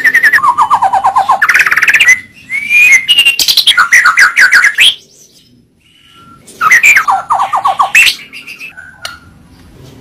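White-rumped shama singing: loud, varied phrases of rapid repeated notes and whistled glides, breaking off about halfway for a second or so before another burst of song, then trailing into softer notes.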